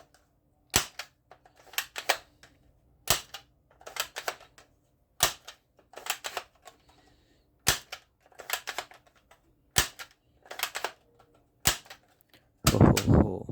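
Toy gun clicking and popping as it is fired or its trigger worked: sharp reports about once a second, some in quick pairs, with a louder, longer burst near the end.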